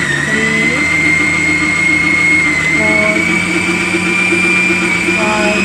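Kalorik 6-speed stand mixer's motor running with a steady whine, rising in pitch in small steps a few times as the speed dial is turned up.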